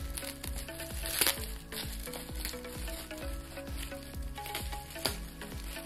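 Plastic packaging tape and wrapping crackling as they are peeled and pulled off by hand, with a couple of sharp snaps. Background music with a steady beat runs underneath.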